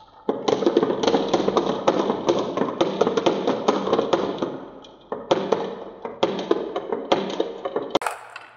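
Glass marbles rolling down a wavy wooden track and dropping into a plastic toy dump truck bed: a rapid clatter of clicks and knocks, dense for about four seconds, then in three shorter clusters.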